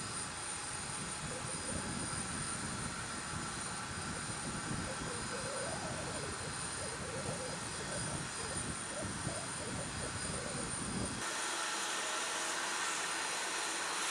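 Jet turbine running on the flightline: a steady high-pitched whine over a rushing, rumbling noise. About eleven seconds in, the low rumble drops away suddenly and the high hiss grows louder.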